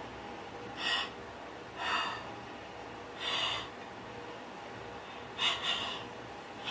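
A person breathing in short, noisy puffs: five of them, about a second apart, the last two close together.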